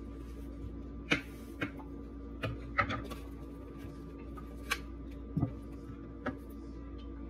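Kitchen knife slicing onion and mushrooms on a wooden cutting board: irregular knocks of the blade on the board, about eight of them, over a steady hum.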